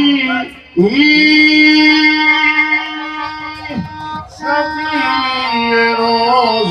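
Qawwali singing over harmonium: a voice holds long sustained notes, breaking off briefly about half a second in. Near the end the line wavers in ornamented turns.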